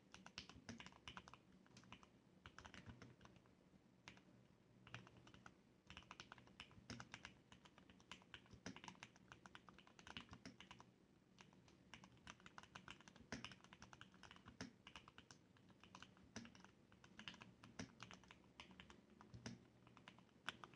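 Typing on a Leopold FC660M mechanical keyboard with lubricated Cherry MX Red linear switches and sound-dampening foam: quiet, rapid runs of keystrokes broken by brief pauses.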